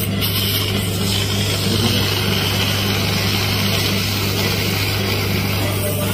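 Steady low machine hum, unchanging in level.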